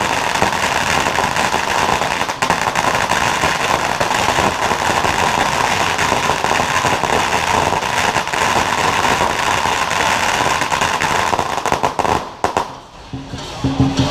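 A long string of firecrackers going off in one continuous rapid crackle, which stops about twelve seconds in. Music starts just after, near the end.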